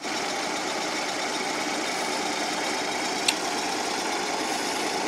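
The scale locomotive's 16 hp Briggs & Stratton industrial V-twin engine idling steadily, with one sharp click about three seconds in.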